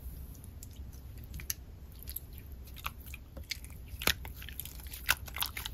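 Slightly sticky Play-Doh hydrogel water slime with shell sequins, pressed and stretched by hand, making wet clicks and pops. The clicks are sparse at first and come thick and fast from about two seconds in, with the sharpest pops about four and five seconds in.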